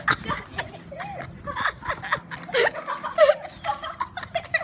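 Giggling and laughing in short, choppy bursts.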